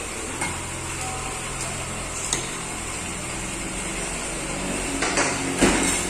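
A few sharp taps and scrapes of a metal spoon and fork against a ceramic plate while eating, the loudest near the end, over a steady background hum.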